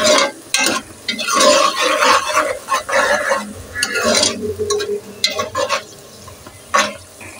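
Metal ladle stirring and scraping sliced onions frying in hot oil in an aluminium pot, in irregular strokes over a sizzle: the onions being sautéed at the start of a curry.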